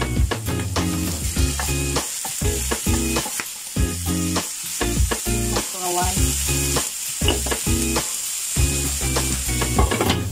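Carrot slices and black fungus sizzling as they are stir-fried in a nonstick pan, with a wooden spatula stirring and scraping through them in short strokes. A glass lid is set on the pan near the end.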